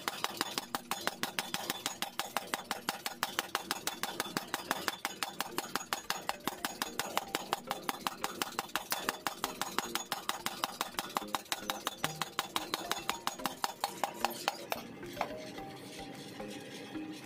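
Small electric power hammer's ram hammering a red-hot steel cleaver blank held in tongs: rapid, evenly spaced metal-on-metal blows that stop about fifteen seconds in.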